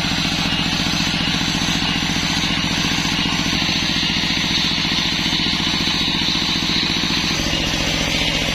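Engine driving a circular sawmill running steadily, with a hiss from the spinning saw above its even low beat; the engine note shifts slightly about seven seconds in.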